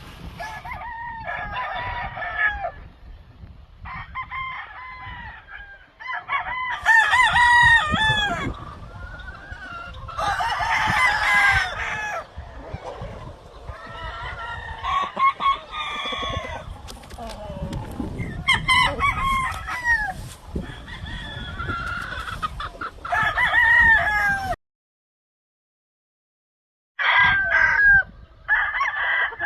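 Several roosters crowing again and again, the crows overlapping one another, with clucking in between. The sound cuts out completely for about two seconds near the end, then the crowing picks up again.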